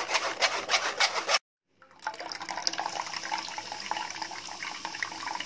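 Grated cucumber pulp pressed against a steel mesh sieve, a quick run of scratchy rasps; after a short break, cucumber juice trickling and dripping into a steel bowl.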